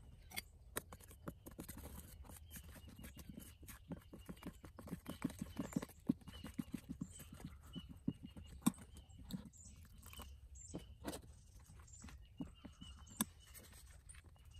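A metal utensil clicking and scraping against a stainless steel mixing bowl as egg yolks and flour are stirred into a batter, in quick runs of taps that are densest in the middle.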